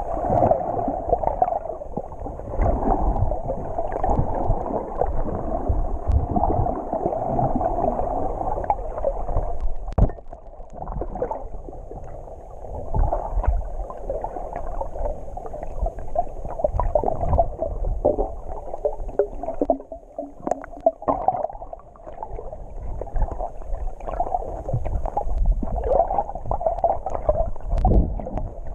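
Muffled underwater sound picked up by an action camera in its waterproof housing: water sloshing and gurgling around the housing with low rumbling and a few sharp knocks.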